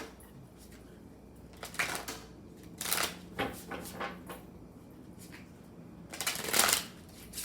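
A deck of tarot cards being shuffled by hand, in irregular short bursts with small clicks between, the longest burst near the end.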